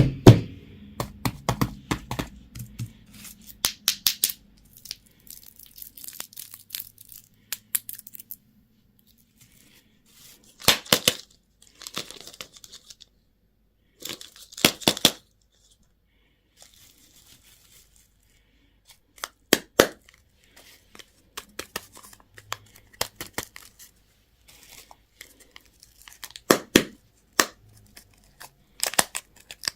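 Candy and toy wrappers being torn open and crinkled by hand, in short bursts of tearing and crackling with sharp clicks and quiet gaps between them.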